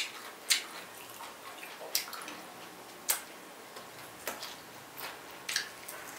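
Close-up chewing of crunchy, chewy pickled chicken feet, with about half a dozen sharp crunches spaced irregularly a second or so apart.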